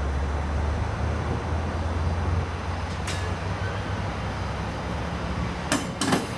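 AMT bilevel commuter coaches rolling past close by, a steady low rumble of wheels on rail that eases after the first couple of seconds. A sharp click about halfway through, and two more near the end.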